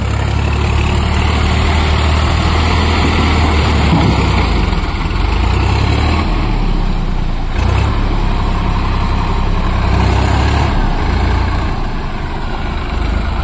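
Swaraj 744 FE 4x4 tractor's three-cylinder diesel engine running steadily under load as the tractor churns through deep paddy-field mud, its note dipping and picking up again a few times.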